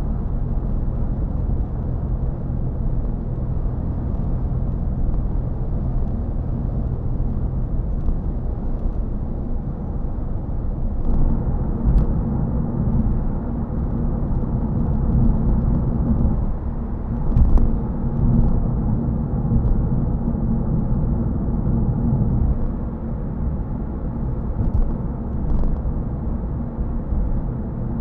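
Steady road and tyre noise heard inside a Toyota Yaris GR Sport cruising at 50 mph on a dual carriageway, a continuous low rumble with a faint hum. It swells briefly a couple of times, about twelve seconds in and again a few seconds later.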